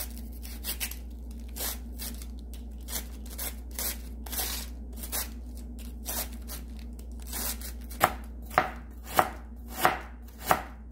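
Cabbage being shredded with a handheld cabbage slicer scraped across the head, in soft, uneven rasping strokes. About eight seconds in it changes to a kitchen knife slicing through cabbage onto a cutting board: five sharp, regular chops about 0.6 s apart.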